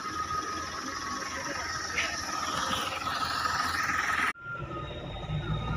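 Hyundai Xcent's freshly overhauled diesel engine idling steadily, with a constant high tone over the engine noise. About four seconds in it cuts abruptly to the low rumble of the car driving, heard from inside the cabin.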